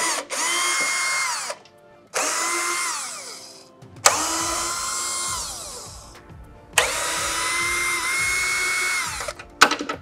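Cordless drill-driver backing out screws from a plastic bumper bracket: four short runs of the motor, each whining up to speed and then winding down, with brief pauses between them.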